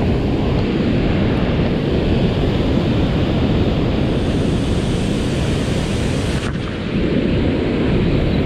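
Wind buffeting the camera microphone: a steady low rumble that eases briefly about two-thirds of the way through.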